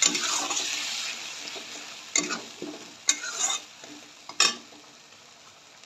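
Ginger-garlic-chilli paste frying in hot oil in a steel kadhai. The sizzle is loud at first and dies away steadily. A wooden spatula stirs and scrapes across the pan three times.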